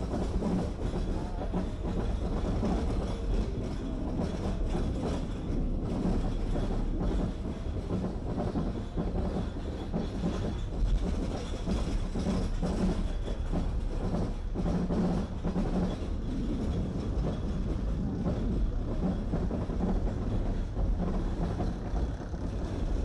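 Onboard sound of an Arrow Dynamics looping roller coaster train running on its steel track, heard from the front seat: a steady rumble with fast clattering and clicking from the wheels.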